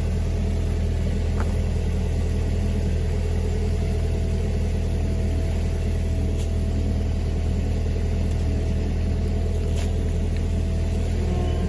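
Rayco RG80 stump grinder's engine running steadily with the cutting wheel not yet turning, a constant low drone.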